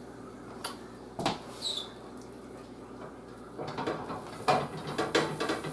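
A pan and kitchen utensils being handled on a stovetop: a few scattered clinks, a short high squeak about a second and a half in, then a run of clattering knocks near the end.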